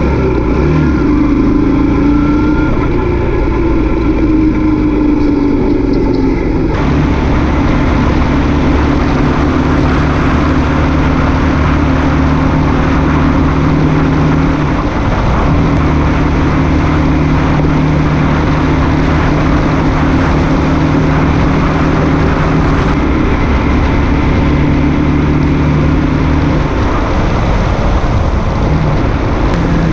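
Motorcycle engine running at road speed, its note gliding in the first seconds and dipping briefly about halfway through and again near the end. About seven seconds in, a loud rush of wind on the microphone joins it.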